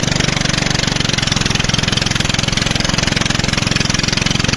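Motor of a narrow wooden river longboat running steadily under way, a fast even pulse with no change in speed.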